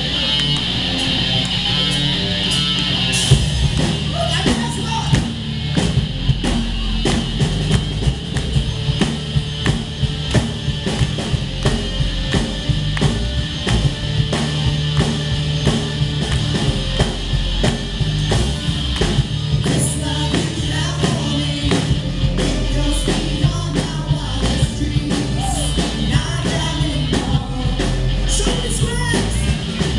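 Live rock band playing: singers on microphones over a drum kit and electric guitars, with a steady driving beat.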